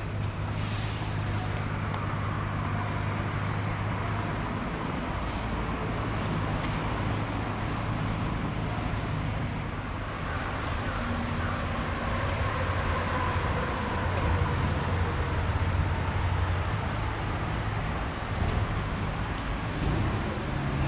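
Steady outdoor city ambience: a low, continuous traffic rumble, with a couple of brief high chirps around the middle.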